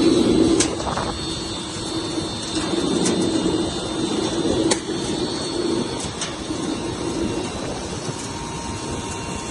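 Machinery of a building-chemicals drying and screening plant running steadily, a dense hum that swells and eases, with a faint high whine and a few sharp clicks.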